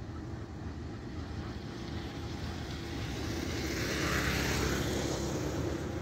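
GE U20C diesel-electric locomotives running with a steady low rumble as the loaded train starts away. A hiss swells and fades about four to five seconds in.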